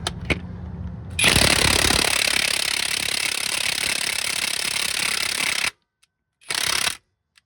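Hercules 1/2-inch cordless impact wrench with a 19 mm socket hammering on a Honda K24 crankshaft pulley bolt to break it loose. It starts about a second in after a few light clicks, hammers steadily for about four and a half seconds, stops, then gives one short burst near the end.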